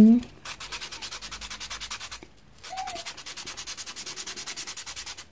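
Pencil lead rubbed back and forth on a sandpaper pad to sharpen it to a point: quick, even rasping strokes, about eight a second, with a short pause a little over two seconds in.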